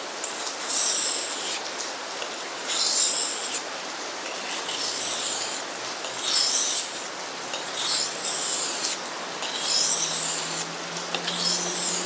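Knife blade of a Becker BK7 being drawn along a combination whetstone: a series of rough rasping strokes, one every one and a half to two seconds.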